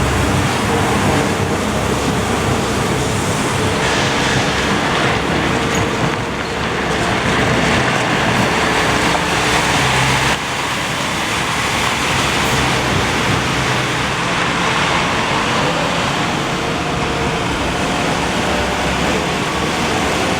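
Steady din of engines and traffic, a continuous rushing noise with faint engine hum beneath, changing abruptly about ten seconds in.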